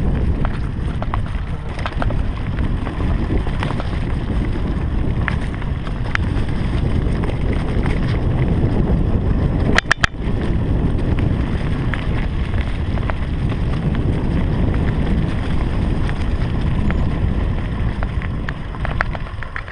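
Wind buffeting an action camera's microphone on a mountain bike riding down dirt woodland singletrack, with rattles and knocks from the bike over the rough trail. The sound breaks off very briefly about halfway through.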